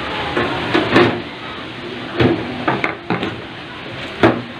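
Side panel being fitted onto a desktop computer case: a series of sharp clacks and knocks as it is set down and pressed into place, the loudest about a second in and again near the end.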